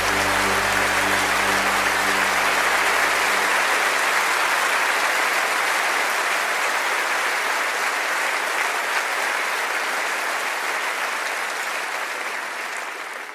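Audience applauding at the end of a recorded song, the last held chord dying away in the first few seconds; the applause then fades out near the end.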